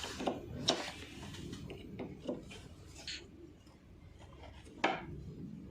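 Scattered clicks, knocks and rubbing of plastic panels, screws and tools being handled while an air conditioner's indoor unit is taken apart, with a sharper knock about five seconds in.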